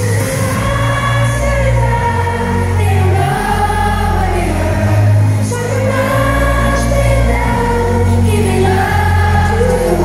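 Live pop band in concert: a woman's lead vocal with several voices joining in, singing long held phrases over deep, steady bass notes.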